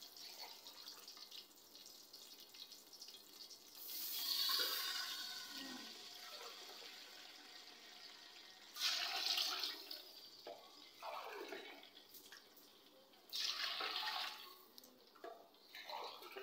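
Glassfuls of water poured into a large aluminium cooking pot holding oil and cumin seeds, in several separate splashing pours; the longest comes about four seconds in.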